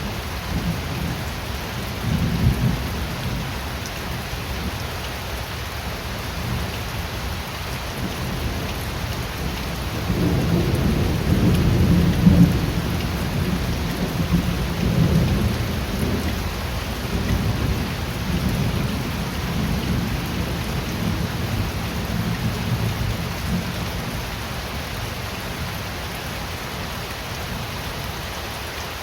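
Steady heavy rain with rolling thunder: a short low rumble a couple of seconds in, then a longer, louder roll of thunder from about ten seconds in that peaks soon after and slowly fades out.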